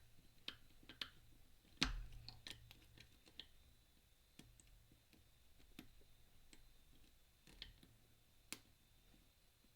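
Faint, irregular metallic clicks and ticks of a pick and tensioner working the discs of a Mindy flat pagoda disc padlock, the loudest a little under two seconds in.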